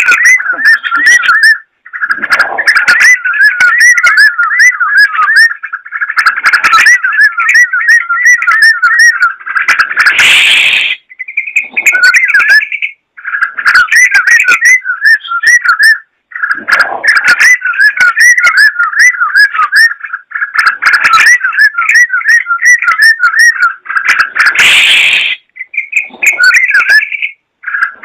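Yellow-vented bulbul (trucukan) singing a fast, chattering run of repeated notes in long phrases, with short breaks between them. Twice, about ten and twenty-five seconds in, a brief, harsher rushing sound cuts across the song.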